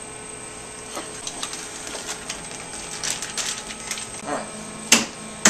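Scattered light clicks, then near the end two sharp knocks about half a second apart: a sheet pan of freshly piped macarons being rapped down on the work surface to flatten them and knock out air bubbles.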